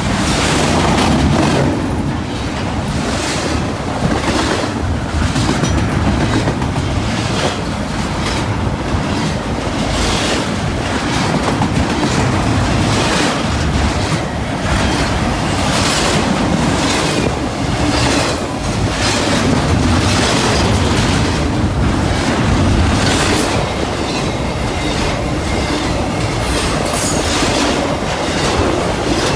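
Norfolk Southern freight train rolling past close by: steady rumble of the cars with a clickety-clack of wheels over rail joints, repeating every second or two, and a brief high wheel squeal near the end.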